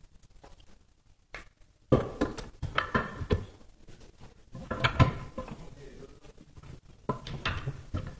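Aluminium transmission case half being lowered over the gear shafts and worked into place on the gearbox: a run of metal knocks and clatters. The loudest come about two seconds in and near the middle, with more near the end.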